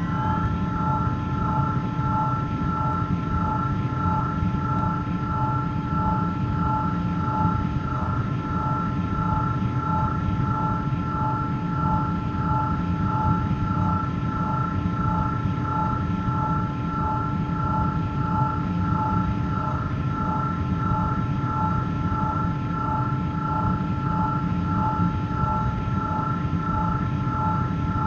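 Sci-fi hover engine sound effect: a steady hum of a few held tones over a dense low rumble, with a fine regular flutter running through it.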